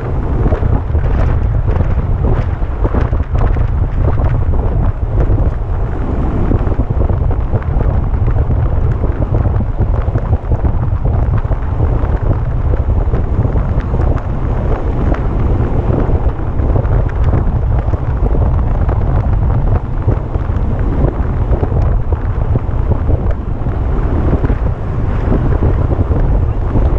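Heavy, steady wind buffeting on the microphone of a camera carried at racing speed in a road-bike criterium, with scattered faint clicks.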